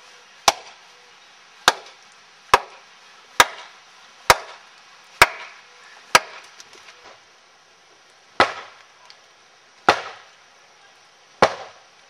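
Axe splitting firewood on a chopping block: ten sharp strikes into wood, about one a second for the first seven, then after a short pause three more, more widely spaced.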